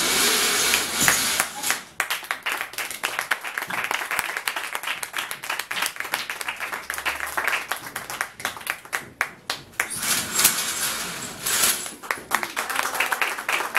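Audience applauding, a dense run of handclaps, loudest about a second in and again about ten seconds in.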